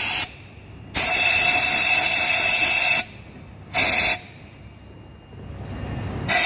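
Compressed-air blow gun hissing in on-off bursts, blowing into the intake port of a cylinder head during a valve leak test: a brief blast, a longer one of about two seconds, a short one, then the air rising again near the end.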